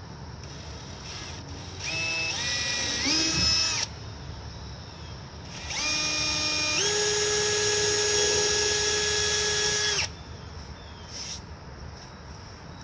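Cordless drill boring small 7/64-inch pilot holes into a truck's front bumper, in two runs. The first lasts about two seconds, its whine climbing in steps as the trigger is squeezed. The second lasts about four seconds, steps up to a higher whine a second in, holds steady, then cuts off suddenly.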